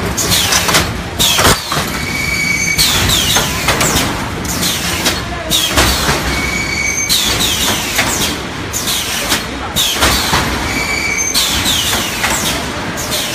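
3D EPS panel wire-mesh welding machine running through its production cycle. Clanks, high falling squeals and now and then a brief steady whistle repeat about every four seconds.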